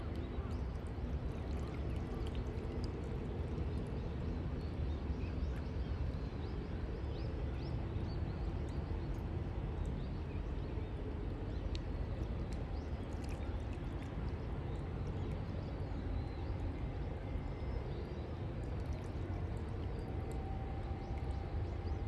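Lakeside ambience: a steady low rumble with faint, high bird chirps scattered through it.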